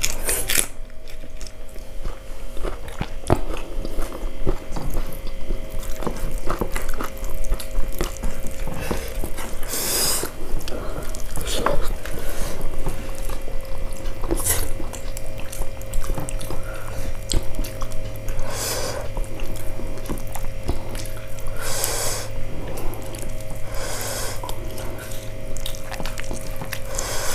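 Close-miked chewing, lip-smacking and wet mouth clicks of people eating soft moong dal khichuri by hand, with irregular louder smacks every few seconds and a steady low hum underneath.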